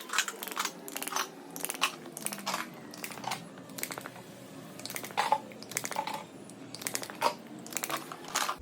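A run of sharp cracks and pops, over a dozen single clicks and short clusters: joints cavitating under chiropractic adjustment.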